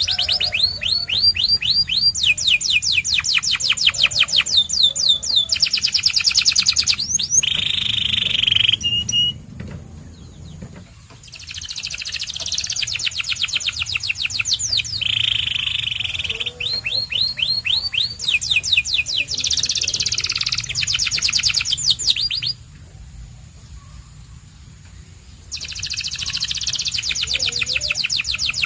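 Canary singing in long phrases of very fast repeated notes and rolling trills at changing pitches, breaking off twice for a couple of seconds.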